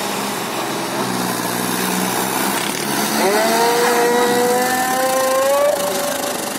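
Tractor's diesel engine running, then revved up sharply about three seconds in and held at high revs, its pitch creeping upward before it eases off near the end, as the tractor is driven in tight circles on loose dirt.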